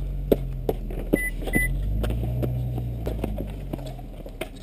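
Two short, identical electronic beeps about half a second apart, a little over a second in, over a low wind rumble on the microphone and scattered clicks and knocks from footsteps and handling.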